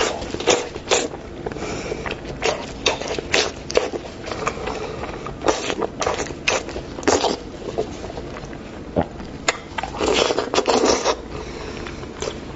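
Close-miked eating sounds: wet, irregular smacks and clicks of chewing as braised sheep-head meat is pulled off and bitten. There is a longer burst of rustling, tearing noise about ten seconds in.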